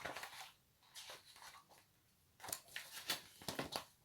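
Faint paper rustling and sharp clicks of a picture book being handled and its pages turned, with a quick run of clicks and rustles near the end.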